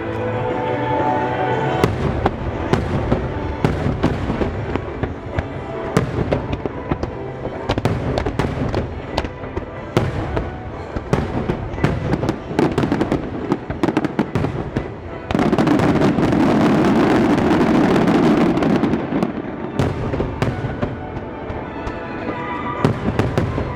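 Music starmine fireworks display: shells bursting and crackling in rapid succession over a music soundtrack played to the show. A little past the middle, the sound thickens into a loud continuous rush lasting about four seconds before the separate bursts return.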